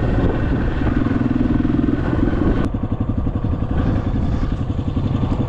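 Dirt bike engine running as it is ridden, rising a little in pitch and strength. It cuts off sharply partway through, and a slower, evenly pulsing engine putter follows at low speed.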